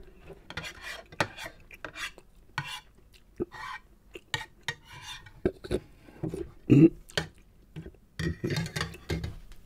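Spoon and fork clinking and scraping against a bowl as the last of a saucy noodle dish is stirred and scooped, in many short irregular clicks, with eating sounds in between.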